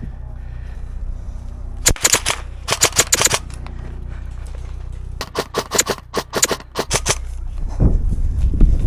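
Airsoft guns firing quick bursts of rapid shots, first about two seconds in, again about a second later, and a longer run of shots between about five and seven seconds. Near the end come fast, heavy footsteps as a player runs.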